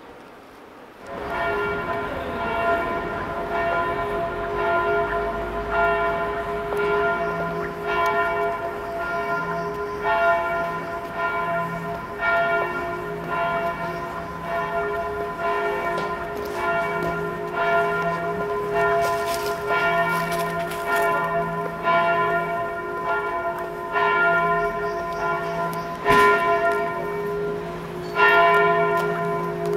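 Bells ringing in a continuous peal, starting suddenly about a second in, with strike after strike overlapping and ringing on.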